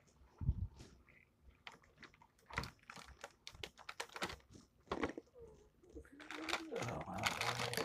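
A clear plastic clamshell food container being handled on a countertop: scattered clicks, taps and knocks of the plastic, building into louder crinkling over the last couple of seconds.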